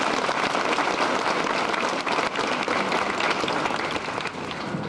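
Crowd applauding, a dense patter of many hands clapping that dies down near the end.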